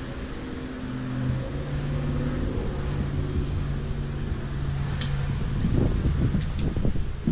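A steady low hum of a few tones, stepping up in pitch about a second and a half in. Later, a wooden door is pushed open, with knocking and rumbling handling noise and a couple of sharp clicks.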